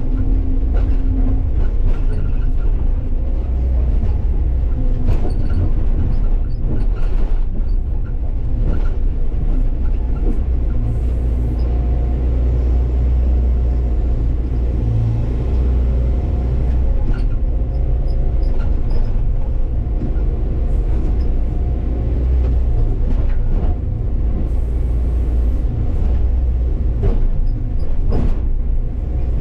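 Hyundai crawler excavator's diesel engine running steadily under working load, heard from the operator's cab, with a few sharp knocks from boulders being lifted and moved in the bucket.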